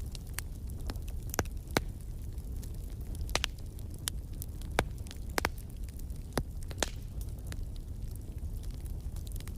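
Wood fire burning in a fireplace: sharp, irregular crackles and pops over a steady low rumble of flame.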